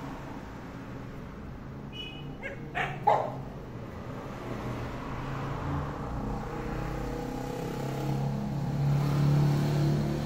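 A dog gives a few short barks about two to three seconds in, over a steady hum of street traffic. A car passes near the end.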